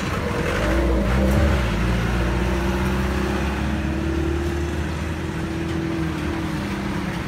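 Highway traffic: a passing motor vehicle's engine drone swells about a second in and holds for several seconds, over a steady low throbbing.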